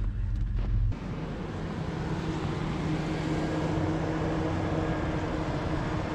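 Ford Explorer's engine running steadily under load as the 4x4 ploughs through deep snow, with a constant hiss of snow against the tyres and underbody. The sound changes abruptly about a second in from a deep hum to a higher, noisier drone.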